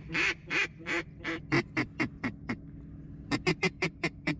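Duck call blown in a string of quacks: about ten notes, each shorter and quicker than the last, then after a short pause a faster run of about seven.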